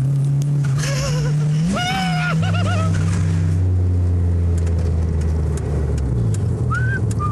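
Small car's engine pulling hard, heard from inside the cabin, with its note dropping to a lower steady drone about two and a half seconds in. A high, wavering cry from a passenger comes over the engine at about two seconds.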